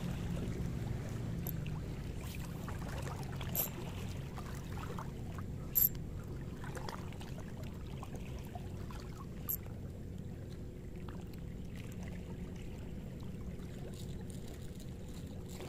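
Steady low shoreline background: shallow sea water lapping over rocks with a faint distant motor hum. A few light clicks stand out, at about 4, 6 and 9 seconds in.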